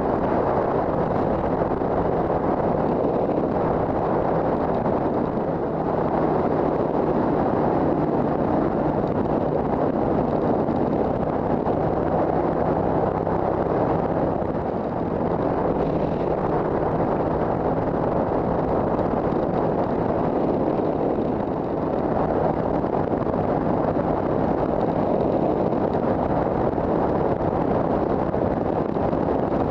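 Wind rushing over a helmet-mounted microphone at road speed, over the steady running of a 2007 Triumph America cruiser's 865 cc parallel-twin engine.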